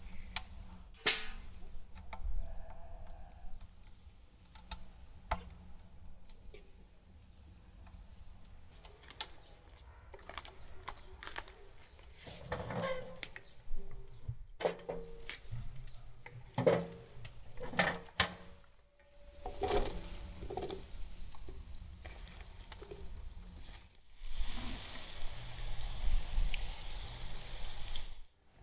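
Cooking and food-preparation handling sounds: scattered knocks and clatter, busier in the middle, then about four seconds of steady hiss near the end.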